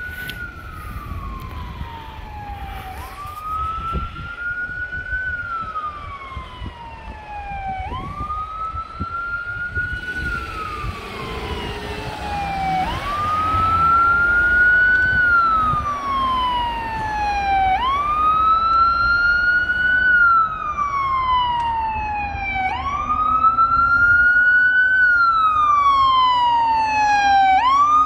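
Fire engine siren wailing, each cycle jumping up quickly and then sliding slowly down, repeating about every five seconds. It grows steadily louder as the engine approaches.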